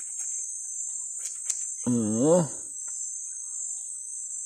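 Steady high-pitched chorus of rainforest insects, with a few faint clicks of scissors snipping through a beard. About two seconds in, a man's voice gives a short wavering hum, the loudest sound here.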